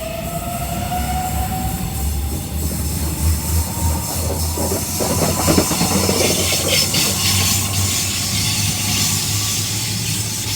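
Sydney Trains M-set (Millennium) electric train pulling away past the platform. A rising motor whine fades out in the first second, then the carriages rumble by with a clickety-clack of wheels over the rail joints, loudest around the middle.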